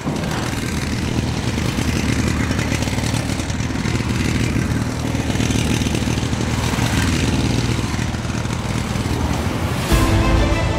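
A steady, engine-like roar with a low hum underneath, holding an even level. Music comes in near the end.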